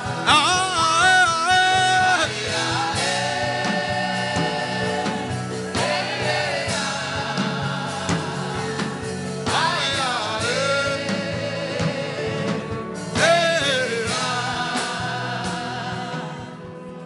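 Gospel worship singing over instrumental backing, with long held, wavering sung notes; it fades down near the end.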